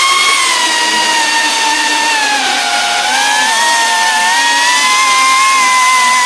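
FPV whoop drone's small brushless motors and ducted propellers whining. The pitch dips about halfway through, then climbs back as the throttle changes.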